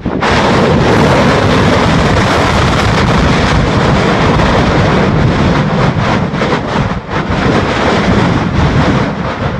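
Mount Yasur volcano erupting: a sudden blast followed by a loud, steady roar that holds for several seconds.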